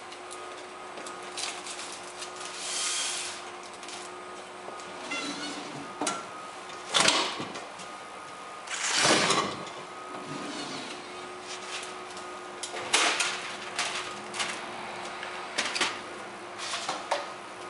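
Compac C3 tray lidding machine being worked by hand: its tray carriage sliding in and out and its sealing handle being brought down and lifted. The result is a run of clicks and metallic knocks, with louder swishing clunks about seven and nine seconds in, over a faint steady hum.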